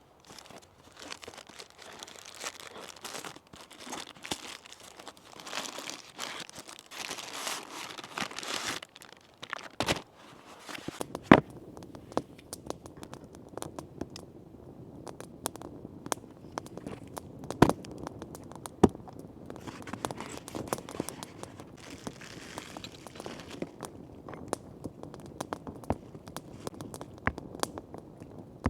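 Crinkling and rustling for about nine seconds, then a few sharp cracks over a steady light crackle.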